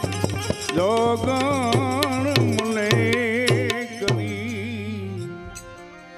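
Devotional bhajan music: harmonium chords under a wavering melodic line, with regular drum and hand-percussion strikes. The playing thins out and fades over the last second or so.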